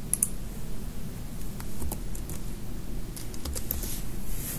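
Computer keyboard keys clicking as a web address is typed, scattered keystrokes in a few short runs over a low steady hum.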